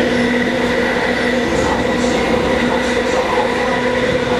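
Running sound of a KCR East Rail MLR electric multiple unit, heard from motor car 205: the nose-suspended traction motors and gears whine at a steady pitch over the rumble of wheels on rail, with the train holding a constant speed.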